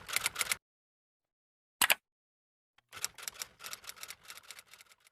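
Short bursts of quick, sharp clicks and scratchy rustling with dead silence between: a cluster at the start, a single click about two seconds in, and a longer run of rapid clicks that fades near the end.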